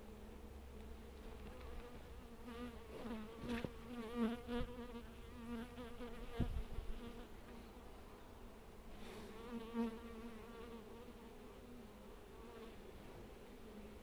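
Honeybees buzzing steadily around an open hive. Bees fly close past the microphone around three to five seconds in and again near ten seconds, their buzz rising and falling in pitch. A few soft knocks come in the middle.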